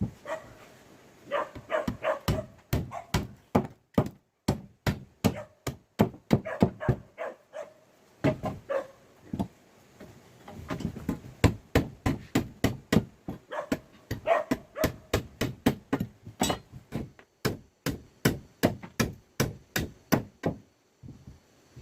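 Repeated tool strikes on wood, about two sharp knocks a second, with an animal calling in short bursts a few times in between.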